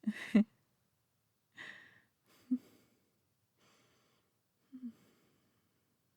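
A woman's soft breaths and sighs, with a few short, low vocal sounds from her in between, separated by quiet gaps.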